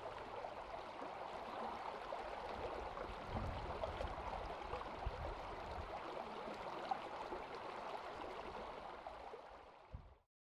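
Shallow river water running over a stony bed, a steady rush that fades out near the end.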